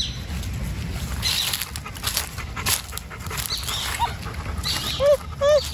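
Two dogs play-wrestling, with a few short high whines about four and five seconds in.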